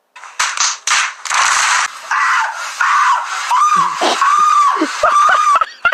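Fireworks going off inside a small bedroom: a few sharp cracks and a hissing spray in the first two seconds, then high-pitched wavering screaming.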